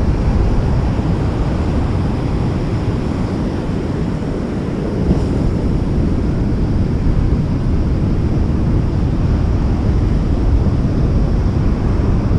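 Steady low rumble of wind buffeting the microphone, with sea surf beneath it.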